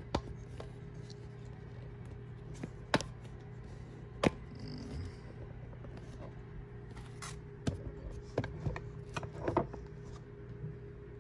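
A microwave oven's steady hum, with scattered sharp clicks and knocks and the crinkle of a plastic bread bag as food is handled on the counter.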